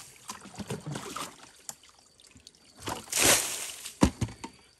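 Muddy water being bailed out of a dug spring pit with a bucket: small splashes and drips, a whoosh of water tipped out about three seconds in, then two sharp knocks near the end.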